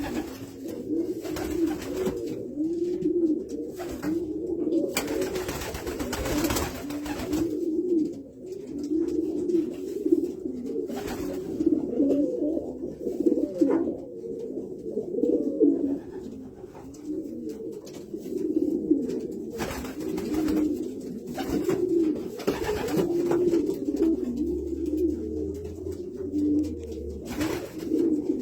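Several racing pigeons cooing continuously, their coos overlapping one another without a break, with a few short rustling noises, the longest about five to seven seconds in.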